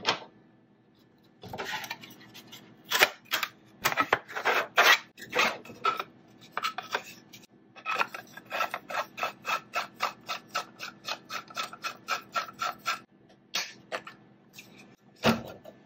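3D-printed carbon-fibre PLA parts being handled and screwed together: irregular knocks and scrapes of hard plastic, then from about eight seconds in a quick, even clicking, about four clicks a second, as the large printed screw is turned into the clamp's threaded frame.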